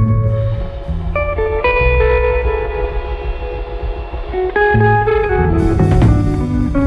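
Instrumental background music, led by guitar, with changing notes over a low bass line.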